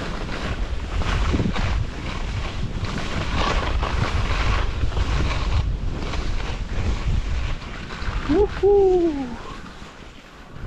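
Skis running downhill over snow with wind buffeting the microphone, a steady rushing noise. About eight seconds in, a short wordless voice call rises, then falls over about a second. The rush dies down briefly near the end.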